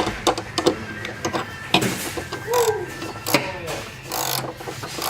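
Hand ratchet clicking in uneven runs as a strut bolt is tightened.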